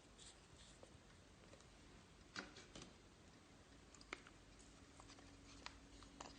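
Faint, scattered sticky clicks and crackles of slime being pressed and stretched by hand, a few sharp pops among a near-silent background.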